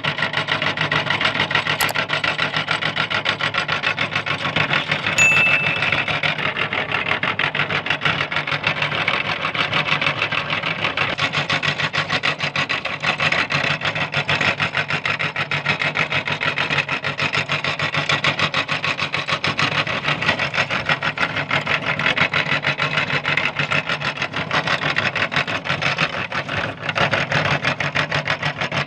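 Electric meat grinder running and grinding hard candy lollipops: a steady motor hum under a continuous, rapid rasping crunch. A brief high squeak about five seconds in.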